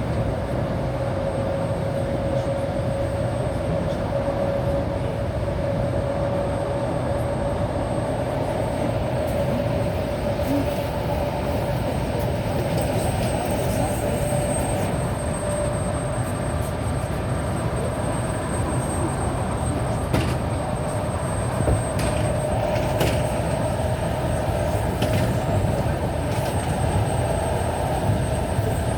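Suburban electric train running between stops, heard from inside the carriage: a steady rumble of wheels on rail with a whine that slowly rises in pitch, and a few sharp clicks in the second half.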